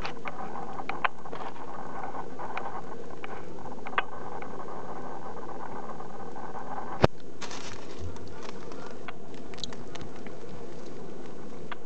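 A guinea pig moving about, with light pattering and rustling and a few sharp clicks over a steady hiss; the loudest click comes about seven seconds in.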